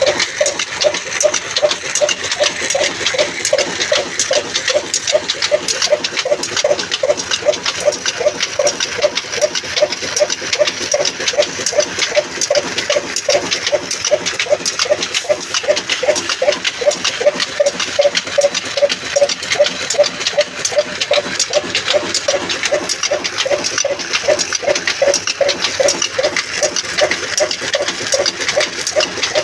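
Stationary diesel engine running steadily, beating in an even rhythm. It drives a spinning line shaft, flat belt and pulleys that turn a grain-cleaning machine, adding a continuous whir and clatter.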